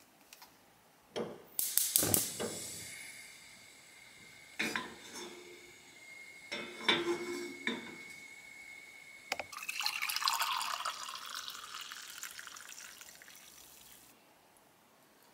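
Stainless saucepan of chicken bone broth knocking and clinking a few times on a gas hob's grate, then the hot broth poured from the saucepan into a ceramic mug for several seconds near the end.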